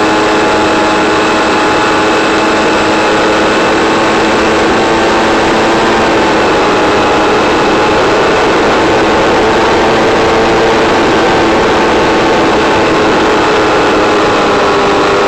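Electric motor and propeller of an FPV model plane running at low power, drawing about 2.5 to 3 amps, a steady whine of several held tones over a constant hiss.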